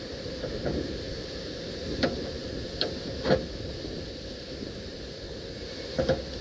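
A handful of short, sharp clicks and knocks of small parts and tools being handled during a hydraulic cylinder repair, the loudest about three seconds in, over steady background noise.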